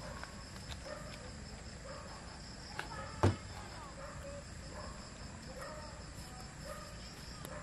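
Crickets and other insects trilling steadily in a high, continuous chorus, under faint distant voices. A single sharp knock sounds a little over three seconds in.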